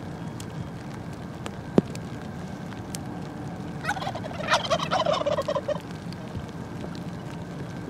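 Wild turkey tom gobbling once, a rapid rattling call lasting about two seconds, starting about four seconds in. A single sharp click comes a little before two seconds in.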